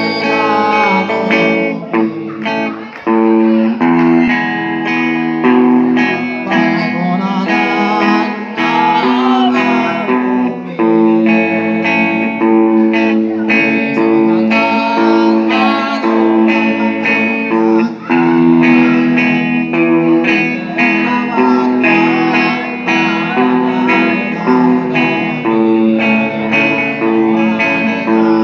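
Electric guitar played through a small amplifier, strumming held chords that change every second or so, with a man singing into a microphone over it.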